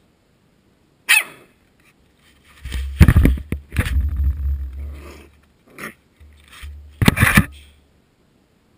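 Coton de Tulear puppy giving several short barks and yips about 1, 3, 6 and 7 seconds in, over a low rumble of scuffling and bumping as it plays right against the camera microphone.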